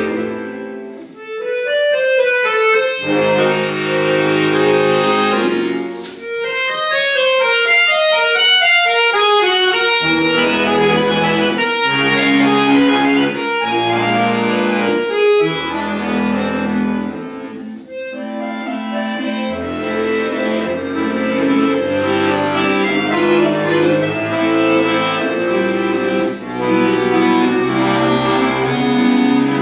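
Chromatic button accordion (bayan) played solo: quick runs of notes in the treble over held bass chords, broken by a few short pauses between phrases.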